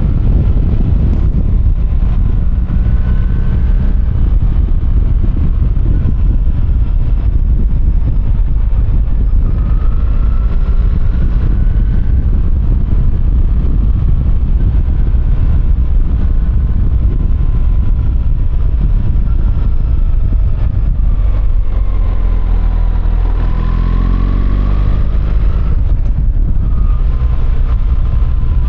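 BMW R1300GS boxer-twin engine running at road speed under heavy wind rush; about three-quarters through, the engine note climbs for a couple of seconds as the bike accelerates.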